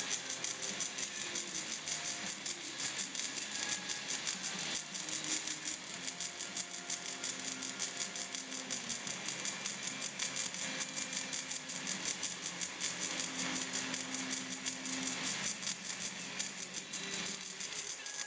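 Background music with a fast, steady shaker-like rattle beat and held melodic notes.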